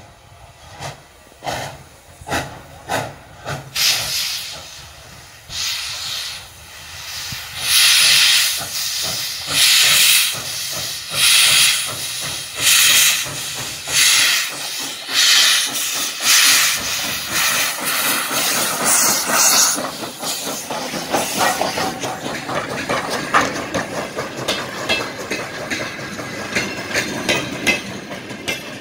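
Soviet class L (Л-5248) steam locomotive pulling away. Soft, spaced exhaust chuffs give way to loud hissing blasts of steam about every second and a half. About two-thirds of the way through, these merge into a faster, continuous rattle of the train's wheels on the rails as it goes by.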